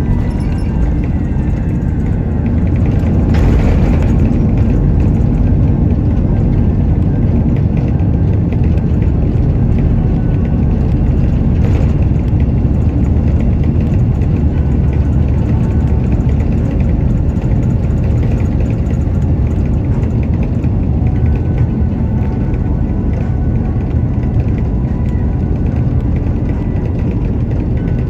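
Airbus A330-300 on its landing roll, heard from the cabin over the wing: a loud, steady rumble of engines and wheels on the runway. It swells a little about three seconds in, and there are a couple of brief knocks.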